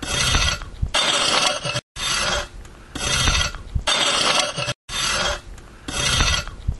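Rough rasping, scraping strokes of about a second each, coming in pairs that repeat about every three seconds.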